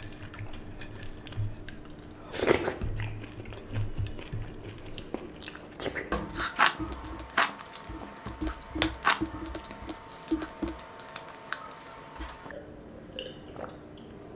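A person chewing and smacking his lips while eating rice by hand, then licking his fingers, with a run of sharp wet smacks from about six to twelve seconds in.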